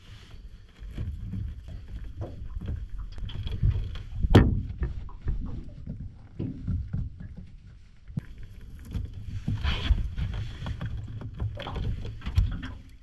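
Handling noise from tying up a mud crab on a boat's carpeted deck: irregular scuffs, clicks and knocks, with one sharp knock about four seconds in, over a low wind rumble.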